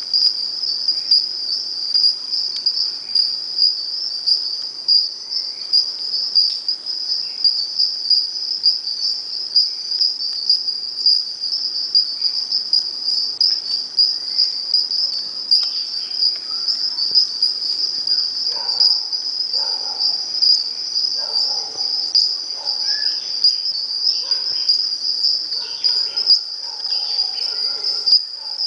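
A chorus of insects in tropical forest at dusk: one steady, high-pitched, finely pulsing trill that never stops. From about halfway through, fainter, lower, short calls come and go under it.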